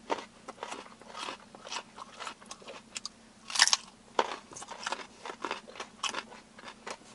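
Two people biting into and chewing raw whole carrots: a run of irregular crisp crunches, the loudest about three and a half seconds in.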